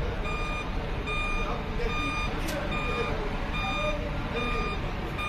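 Mercedes-Benz Travego coach's reversing alarm beeping evenly, about once every 0.8 seconds, over the low running sound of its diesel engine as it pulls out of the platform bay.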